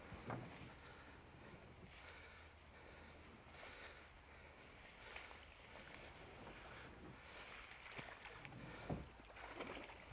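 Steady high-pitched insect chorus from the creek-side bush, with a few soft knocks and splashes from a kayak paddle, the loudest about nine seconds in.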